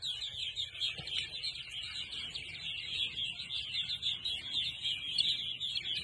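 A flock of purple martins chirping and chattering together in flight, a dense, continuous chorus of overlapping high calls, over a faint low rumble.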